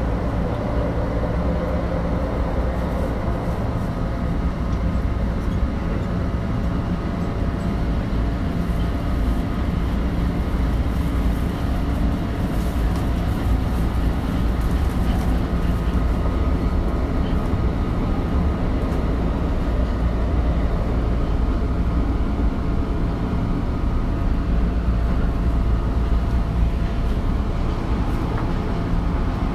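Tokyo Metro 2000-series subway train standing at an underground platform: a steady, unchanging hum and low rumble with faint steady tones.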